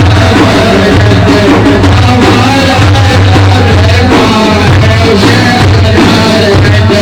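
Loud Sufi praise-song (madih) music: a steady, heavy drum beat under a wavering melodic line.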